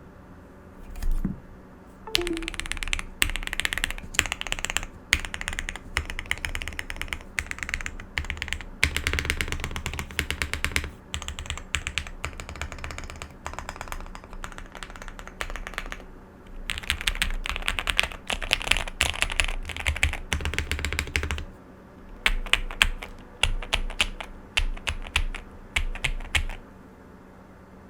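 Owlab Mr. Suit TKL mechanical keyboard with SP-Star Meteor White linear switches on an aluminium plate with PE foam and PBT keycaps, typed on with a poppy sound. Fast runs of keystrokes fill most of the time, then after a brief pause come slower, separate keystrokes near the end.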